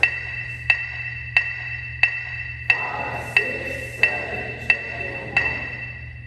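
Electronic metronome beeping a steady beat, about one and a half clicks a second, nine beats in all. Each beep rings on in the gym's echo.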